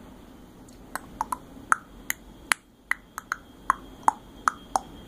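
A quick run of sharp clicks, starting about a second in and going on at an uneven pace of about three a second. Each click has a short ringing tone that shifts up and down in pitch from one click to the next.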